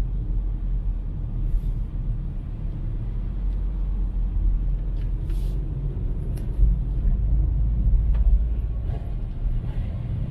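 Car road noise heard from inside the cabin while driving: a steady low rumble.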